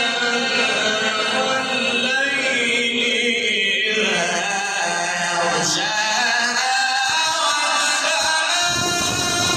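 A man's voice chanting Quran recitation in the melodic tajwid style, holding long, slowly bending notes.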